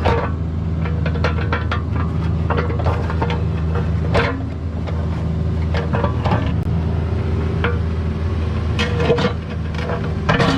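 CAT 304 mini excavator's diesel engine running steadily while the bucket digs, with repeated sharp scrapes and knocks of steel on stony ground as it probes the trench.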